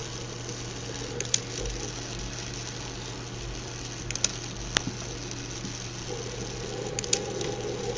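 Steady low electrical hum with a few faint, sharp clicks from handling a small transistor while it is fitted into a circuit.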